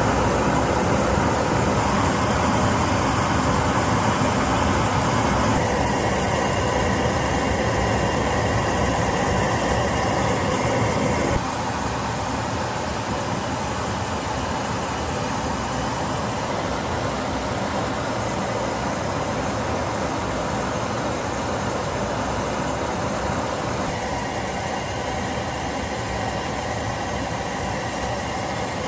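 Steady jet aircraft noise in flight: a constant rush of engines and air with no breaks. It drops a little in level about eleven seconds in.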